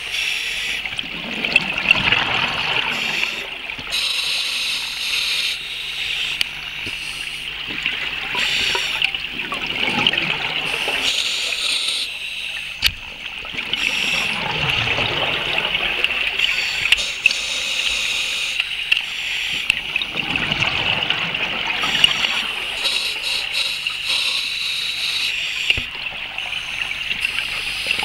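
Underwater scuba breathing: exhaled bubbles from a diver's regulator gurgle up in swells every few seconds over a steady hiss.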